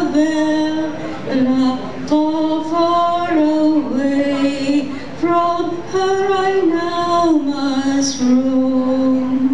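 A woman singing into a handheld microphone, her voice amplified through the hall's PA, holding long steady notes that step up and down between pitches.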